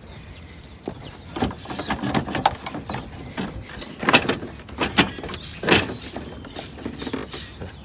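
Hard plastic clicks, knocks and scraping from a 2008 BMW 528xi's headlight assembly being worked loose and pulled out of its mounting by hand; the knocks come irregularly, several a second at times.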